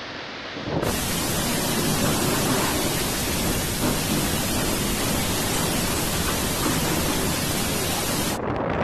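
Tornado wind blasting the microphone: a dense, steady rush of noise that starts suddenly about a second in and cuts off just before the end.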